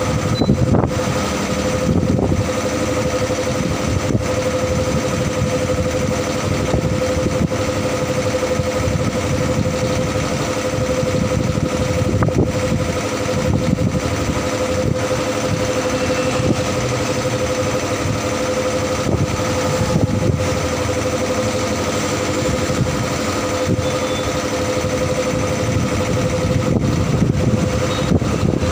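Workshop air compressor running steadily while truck tyres are inflated: a continuous hum over a low rumble.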